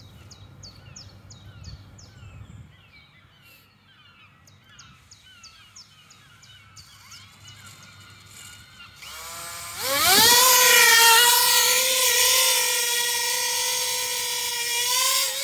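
Birds chirp over a low wind rumble. About nine seconds in, the motors and propellers of a coaxial ducted drone spin up with a rising whine. They settle into a loud, steady whine made of several tones.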